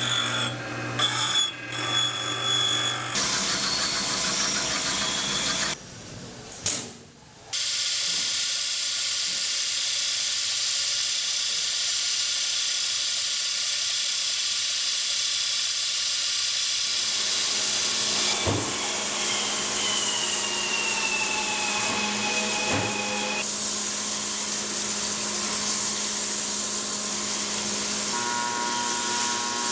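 Machine tools in an engine rebuild machine shop, running with a steady hiss and hum that changes abruptly several times. A high whine slowly falls in pitch in the middle.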